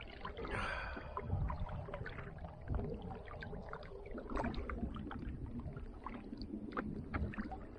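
Water lapping and dripping around a kayak, with small splashes and ticks scattered throughout and a slightly bigger splash about half a second in. A low rumble of wind on the microphone runs underneath.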